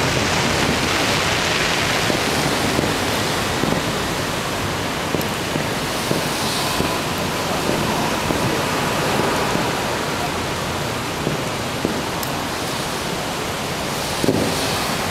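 Fireworks display: a steady rushing hiss from fountain fireworks, with a few faint pops scattered through it and one sharper report near the end.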